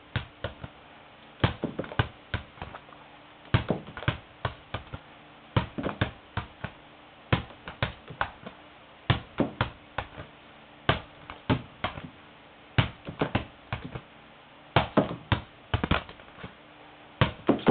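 Small toy ball bouncing and tapping, in irregular clusters of sharp knocks about a second apart.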